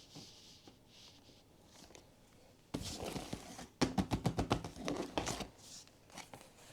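Hands handling blind-box toy packaging. A rustle starts about three seconds in, followed by a quick run of sharp clicks and crinkles lasting about a second and a half, then a few softer taps.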